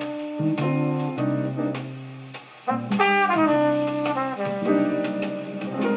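Recorded jazz with horns played back through Philips AG9014 and AD3800AM full-range loudspeakers in a listening room, held notes and a melodic line that slides downward. The music dips briefly and comes back louder about halfway through.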